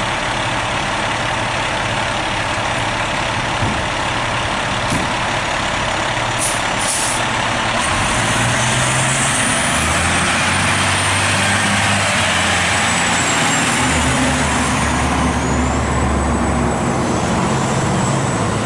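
Fire engine's engine running under load as the truck moves, with a steady rushing noise over it. The low engine note steps up and down several times, from about halfway through, like gear changes.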